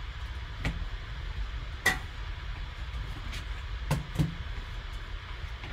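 Gloved hands handling a cardboard card box and its contents: four short taps and clicks, the loudest about two seconds in and two close together near four seconds, over a steady low hum.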